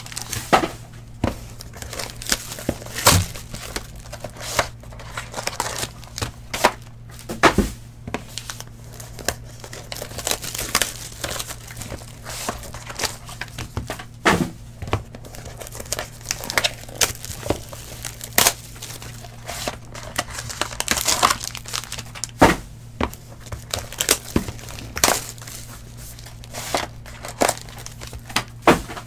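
Trading card packs being torn open and the cards handled on a table mat: the foil wrappers crinkle and tear, with frequent sharp clicks and snaps as the cards are flicked through and set down. A steady low hum runs underneath.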